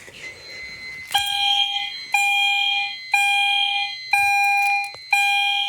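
EST Genesis fire alarm signals sounding in alarm after a pull-station activation: a steady pitched tone pulsing about once a second, on for most of each second with a short break. The pulses start about a second in, over a faint steady high whine.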